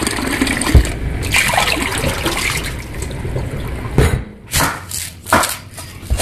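Tap water running and splashing over napa cabbage leaves in a plastic colander in a stainless steel sink, a steady rush that stops about four seconds in. A few sharp knocks follow.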